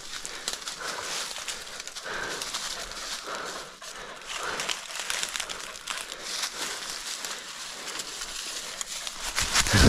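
Dry leaf litter crunching and crackling while a dog holds a wild boar in the scrub, with several short animal calls in the first half. A loud, sharp thump comes just before the end.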